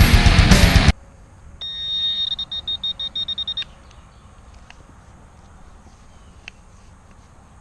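Rock music with guitar cuts off abruptly about a second in. Then a metal detector gives a high electronic tone, held for about half a second and then beeping rapidly for about a second, sounding on a buried metal target.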